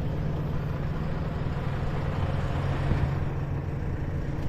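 Diesel semi-truck engine idling steadily with a low, even hum.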